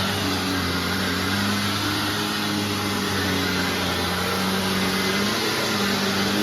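2001 Hoover WindTunnel Self-Propelled Ultra (U6430-900) upright vacuum running on carpet, a steady motor whir and rushing air with its pitch wavering slightly.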